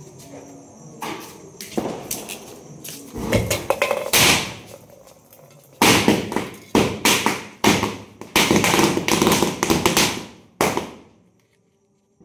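Misfired firecrackers going off as they burn: a string of loud sharp bangs, thickening into rapid clusters a few seconds in and again past the middle, then stopping abruptly near the end.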